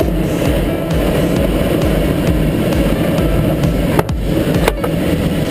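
Steady rushing airflow noise in the cockpit of a Scheibe SF-34 sailplane on aerotow, with a couple of sharp clicks about four seconds in.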